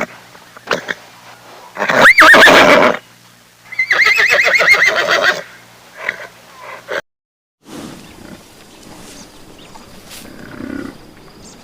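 A horse neighing twice: a loud whinny with a rising then falling pitch, then a longer, shaky, quavering one a moment later. Quieter rustling follows after a brief break.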